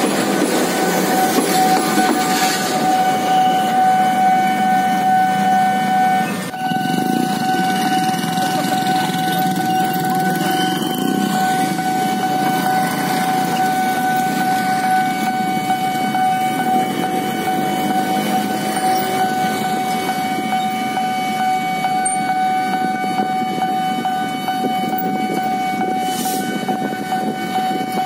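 Railway level-crossing warning alarm sounding as one unbroken high tone, over a low rumble of engines.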